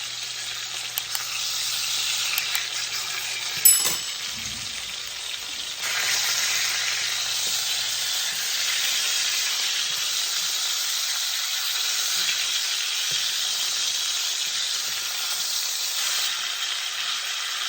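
Skin-on chicken thighs sizzling steadily as they brown in hot oil in a frying pan. There is a single sharp click about four seconds in, and the sizzle gets a little louder about six seconds in.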